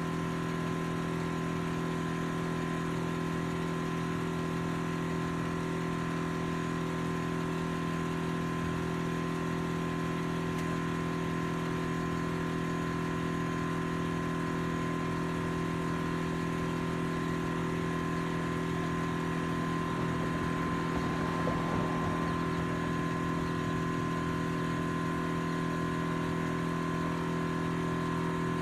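Kleinn onboard air compressor on a Jeep Wrangler JK running steadily with a constant hum, rebuilding air-tank pressure that the air impact wrench has drawn down.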